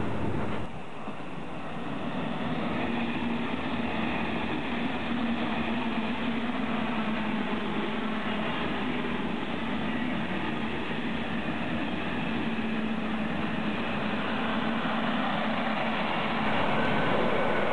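Passenger train of double-deck coaches with an electric locomotive passing close by, a steady rumble of wheels on rail with a steady low hum. The noise dips briefly about a second in, and grows a little louder near the end as the locomotive goes by.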